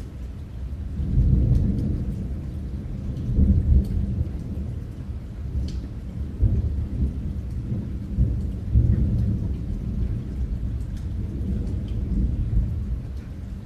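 Steady rain with low rolling rumbles of thunder that swell and fade several times.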